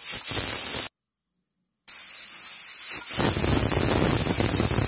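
Aluminium pressure cooker whistling: steam hisses loudly out from under the weight valve in two blasts, split by a silent gap about a second in. The second blast gets stronger and fuller about three seconds in. The whistle marks the cooker reaching full pressure; two whistles count as done for the greens.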